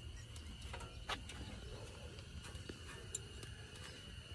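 Light metallic clicks and knocks as an ECS Tuning coilover strut is handled into place in a car's front wheel well. The loudest click comes about a second in, with a couple of fainter ones later.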